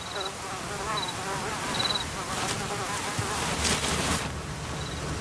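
Flies buzzing close by in wavering tones, with a few short high chirps and a couple of brief scrapes of a kangaroo's paws digging in dry, loose dirt, about two and a half and four seconds in.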